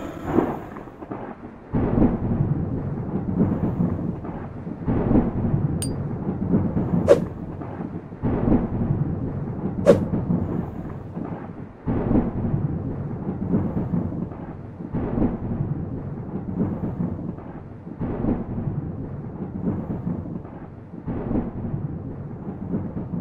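Deep rumbling booms, a new surge every two or three seconds, like thunder, with a few sharp cracks in the middle.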